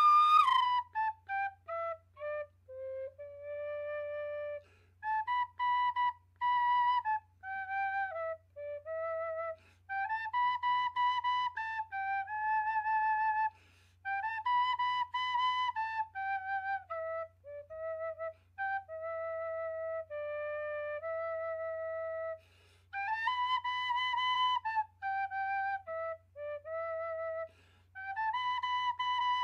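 End-blown flute playing a slow solo melody of single held notes, with short breaths between phrases; the opening notes step downward.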